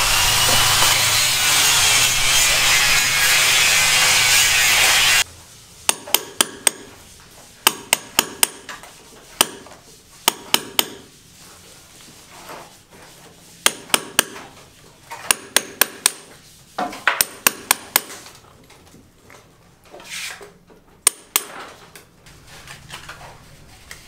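A loud, steady noise for about five seconds cuts off suddenly. Then comes hand hammering in quick runs of three to five sharp blows, with short pauses between runs, as workers fix steel floor decking.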